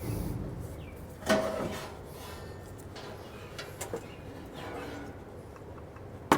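Metal parts of a furnace blower assembly clanking and scraping as they are worked loose and handled: a ringing clank about a second in, a few light clicks, and two sharp knocks at the end.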